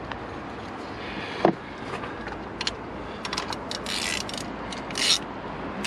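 Hand socket ratchet clicking in short runs while a coolant temperature sensor is tightened into the engine, with a sharp knock about a second and a half in.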